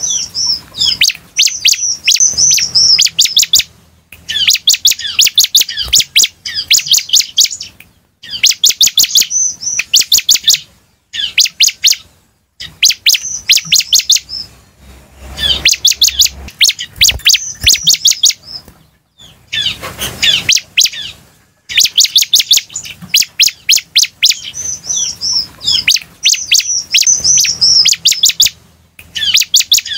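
Ciblek (prinia) singing: fast trains of high, sharp chips, about eight to ten a second, in phrases of a second or two broken by short pauses.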